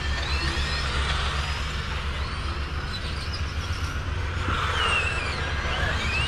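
Electric RC racing trucks' motors whining, several at once, their pitch rising and falling as they speed up and slow around the track, over a steady low rumble.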